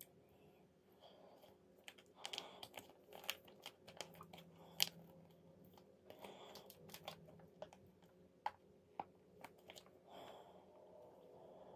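Holographic foil mask sachet crinkling and crackling as it is handled, a run of sharp crackles over several seconds, loudest about halfway through.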